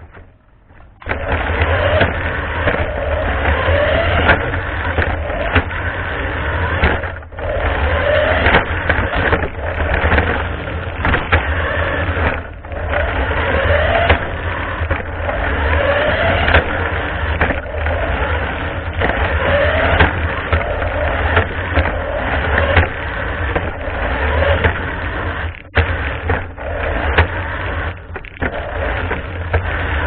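Toy remote-control car's small electric motor and gears running in high gear as it drives over a concrete floor, heard close up from a camera riding on the car. A loud whirring rattle starts about a second in, with a rising whine repeating every couple of seconds and three brief drops.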